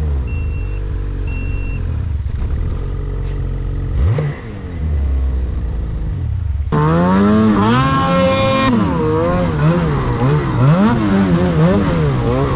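Snowmobile engines idling, with a few short high beeps at the start. About two-thirds of the way in a snowmobile engine takes over loudly, revving up and down repeatedly as the sled is ridden through deep snow.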